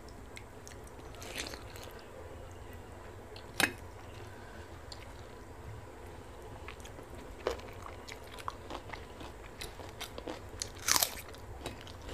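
Close-miked eating sounds: a person biting and chewing a meal of pakhala (fermented water rice) with fried okra, roasted vegetable mash and raw onion. Scattered crunches and small wet clicks, with sharp crunches a few seconds in, about midway, and the loudest just before the end, and the clicks growing busier in the second half.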